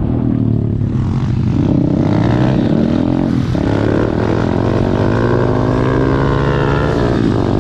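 Small four-stroke single-cylinder engines of SSR 110cc and 125cc pit bikes running together while riding, the engine note rising and falling with the throttle. The pitch drops briefly about three and a half seconds in and again near the end.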